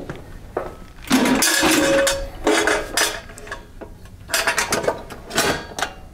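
Stainless steel pneumatic line magnet housing clanking and rattling as its DESTACO toggle clamps are released and the housing door is swung open: several spells of metal-on-metal clanks, the first and loudest about a second in, one ringing briefly.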